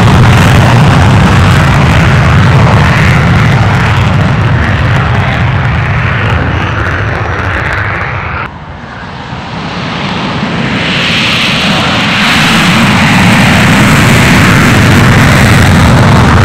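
Fighter jet engine running in afterburner, a loud, steady roar. About halfway through it drops away suddenly, then builds back up to full loudness.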